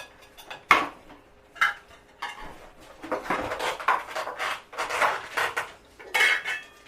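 A spoon clinking and scraping against a plate of food: two sharp clinks in the first two seconds, then a few seconds of busy scraping and clatter.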